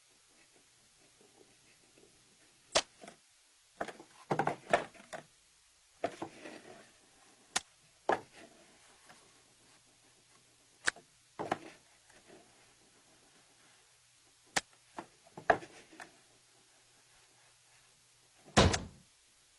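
Scattered knocks, taps and scrapes of a small box and its lid being handled, some single sharp clicks and some quick clusters of knocks, with a louder thump near the end.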